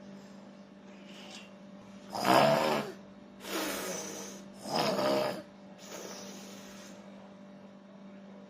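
A person snoring: two loud, rattling snores on the in-breath, about two and five seconds in, each followed by a long, hissing out-breath. A steady low hum runs underneath.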